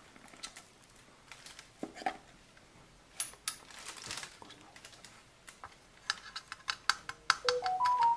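Light clicks and knocks of hands handling a circular saw's plastic housing and blade guard, growing quicker and sharper in the last couple of seconds. Background music with held notes comes in near the end.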